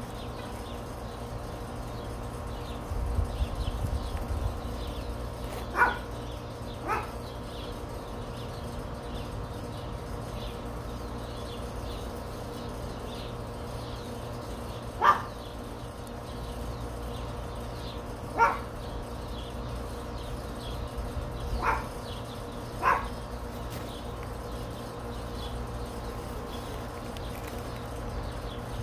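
Short, sharp animal calls, six of them, single or in quick pairs, several seconds apart, over a steady low background hum.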